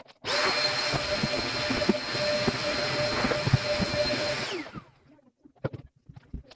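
A household appliance's electric motor switches on, runs steadily with a whine for about four and a half seconds, then switches off and winds down with a falling pitch.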